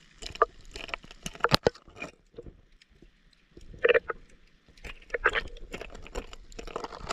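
Underwater recording of a Hawas Power Rap suspending minnow lure being jerked through the water: irregular clicks from its internal rattle mixed with bubbling water.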